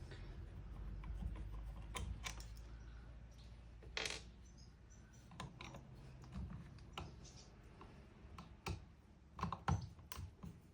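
Screwdriver work on a plastic fan housing: irregular clicks, taps and small knocks as the screws are undone and handled.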